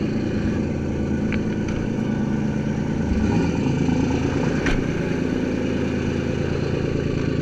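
Boat engines running at idle close by, with a brief rev and change of pitch about three seconds in before settling to a new steady note. A few sharp knocks come over the engine noise.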